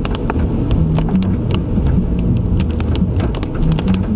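Rain and road noise inside a Hyundai Venue driving on a wet road: a steady low rumble of tyres and engine, with raindrops tapping sharply and irregularly on the windshield and roof.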